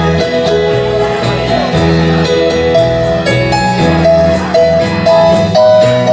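Live band music: keyboard and guitar playing a melody over held chords, with a steady beat.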